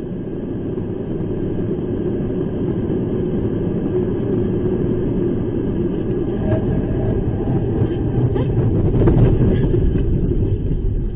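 Steady low rumble of a car's road and engine noise heard inside the cabin while driving. It grows a little louder toward the end, with a few faint knocks in the second half.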